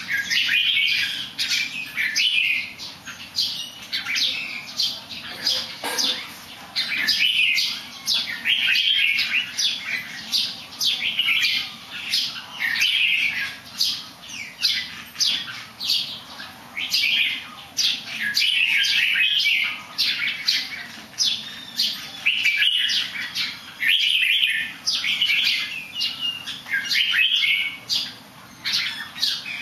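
Pet songbird singing: quick chirping phrases, one after another with short pauses.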